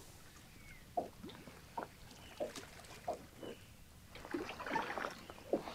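Faint water splashing and a few soft knocks at the side of a small boat as a smallmouth bass is released into the lake, with a longer splash a little after four seconds.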